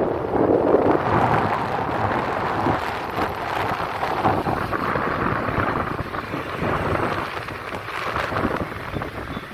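Wind buffeting the microphone of a phone filming from a moving vehicle: an uneven rumbling noise that swells and dips, with the vehicle's road noise underneath.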